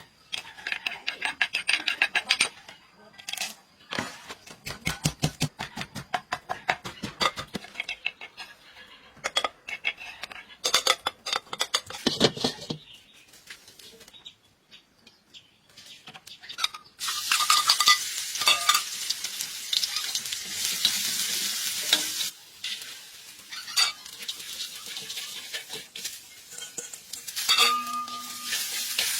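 Rapid, rhythmic knocking and clinking of kitchen utensils against pots or pans for the first half. Then, about two-thirds of the way in, food goes into hot oil and sizzles steadily while it is stirred.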